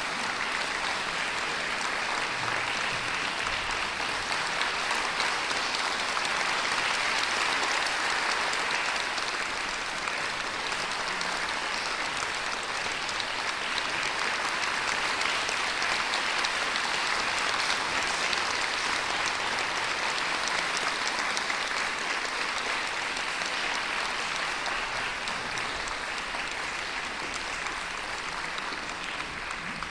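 Concert-hall audience applauding steadily, fading near the end.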